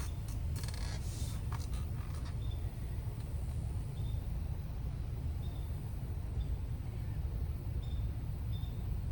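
Steady low rumble of wind on the microphone, with a few sharp clicks in the first two seconds and faint short high chirps now and then.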